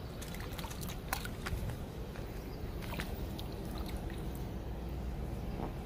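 Faint small splashes, drips and a few scattered clicks of hands working a wet gill net and a fish in river water, over a low steady background rumble.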